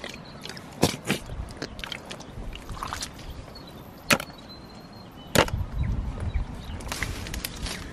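Footsteps through soft mangrove mud and among branches, with a few sharp cracks, about a second in, near the middle and at about five and a half seconds, and leaves being brushed aside.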